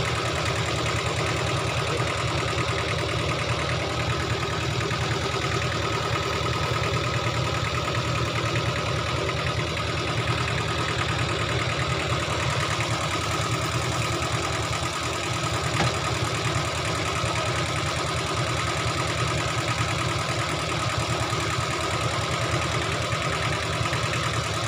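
Kubota L1500 compact tractor's diesel engine idling steadily with a fast, even knock.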